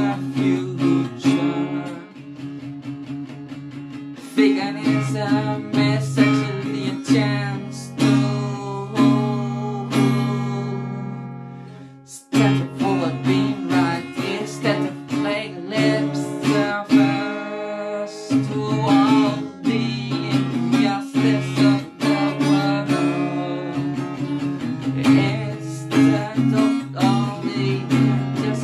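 Acoustic guitar strummed in a steady rhythm, with a voice singing along. The playing drops quieter about two seconds in, and about twelve seconds in the chord is left to ring out and fade before the strumming starts up again.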